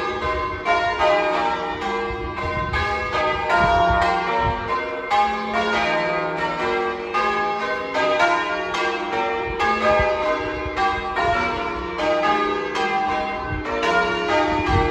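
Church bells being change rung: a ring of bells struck one after another in quick, steady succession, their notes overlapping and ringing on.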